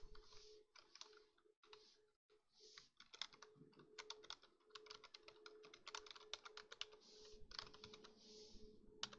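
Faint typing on a computer keyboard: quick runs of keystrokes with short pauses between them.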